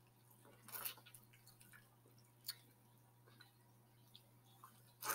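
Faint eating sounds from biting and chewing corn on the cob: soft wet mouth noises just under a second in, a short sharp click about two and a half seconds in, and a few tiny ticks.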